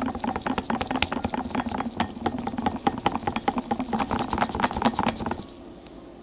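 Wire balloon whisk beating fresh cream by hand in a glass bowl: a rapid clatter of the wires against the glass, with a steady ringing tone under it. The whisking stops suddenly about five seconds in, as the cream reaches soft peaks for piping.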